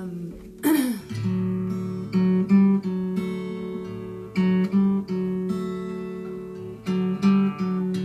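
Acoustic guitar in open D tuning (DADF#AD) strummed, with the open low strings ringing as a drone. Sharp strums come in groups of three, about every two and a half seconds.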